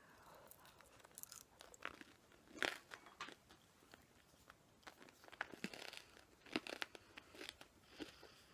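Faint, irregular crunching and chewing of a mouthful of hard microwaved peanut brittle, loudest about two and a half seconds in.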